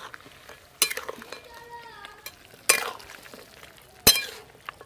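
A metal spatula stirring a vegetable curry in a metal wok. It scrapes and knocks against the pan three times, sharply.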